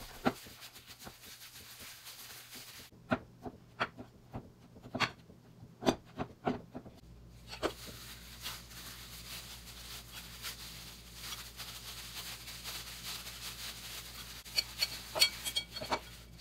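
Plastic-gloved hands mixing and kneading mashed potato in a ceramic bowl: soft rubbing with scattered light knocks against the bowl, and a quick run of clicks near the end as a spoon scrapes the bowl.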